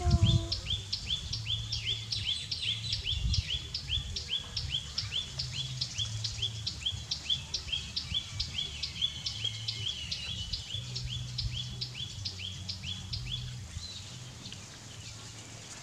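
A bird calling in the background, a fast, regular series of short, high, downward-sliding chirps at about three to four a second. The chirps stop a couple of seconds before the end.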